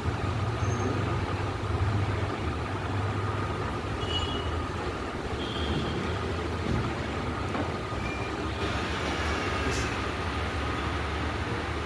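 Steady low rumbling background noise, with a few brief high-pitched squeaks.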